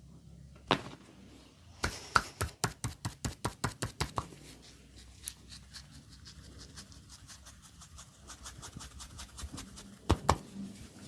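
Massage percussion: hands striking the body in quick chopping strokes. One sharp crack about a second in is followed by a run of about a dozen fast strikes at roughly five a second. Fainter quick tapping follows, and two loud strikes come near the end.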